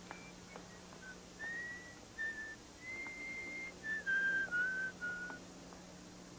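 A person whistling a short tune of about a dozen clear, held notes, with a long high note in the middle and the phrase stepping lower near the end; the whistling stops a little past halfway.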